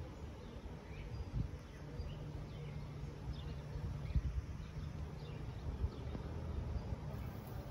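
Small birds chirping now and then, short high notes over a steady low outdoor rumble.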